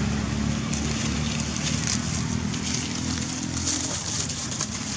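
Steady engine hum of a motor vehicle running nearby, its pitched drone stopping about four seconds in. Brief light rustling of dry leaves is heard over it.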